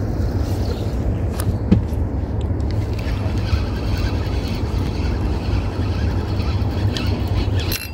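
Wind buffeting the microphone outdoors: a steady low rumble, with a few faint clicks in the first couple of seconds.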